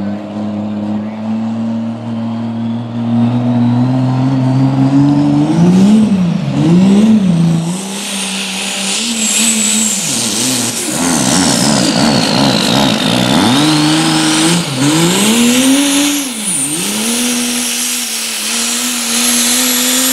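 Turbocharged Cummins diesel in a Dodge Ram pulling truck working against the sled. The engine first runs up steadily, with a turbo whistle climbing in pitch. Its revs then surge and drop several times under a loud, high turbo whine that falls and climbs again.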